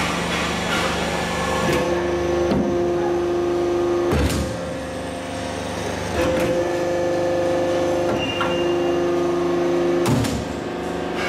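SG-100-II two-station pipe end forming machine working a steel pipe: a steady hydraulic hum that rises to a stronger, higher tone during two strokes of a few seconds each. Clunks sound as the clamping and forming rams start and stop, loudest about four and ten seconds in.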